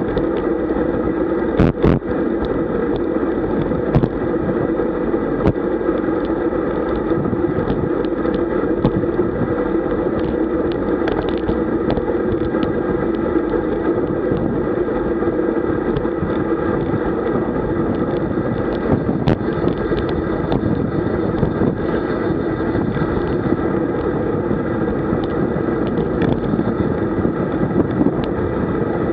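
Steady wind rush and tyre rumble from a road bicycle descending at about 45–50 km/h, with a few short sharp knocks.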